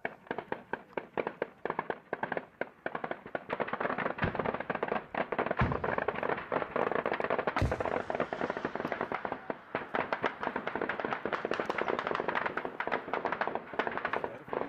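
Heavy automatic gunfire: many rapid, overlapping shots from several weapons, starting suddenly, with three deeper booms about four, five and a half and seven and a half seconds in, the last the loudest and echoing away.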